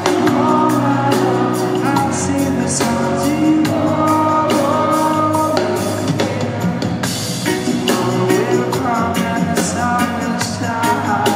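Live reggae band playing: a male lead vocal sung over electric guitar, keyboards, bass and drums.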